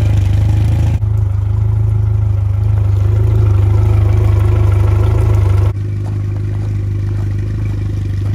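Yamaha 115 hp four-stroke outboard motor idling steadily on flushing muffs, during a test run of its newly replaced water pump. The engine sound shifts abruptly about a second in and again near six seconds.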